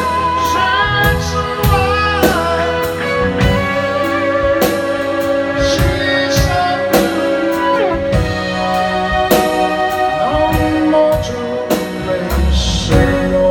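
Live rock band playing a slow song: sustained electric guitar lines with bends over keyboards, bass guitar and drums.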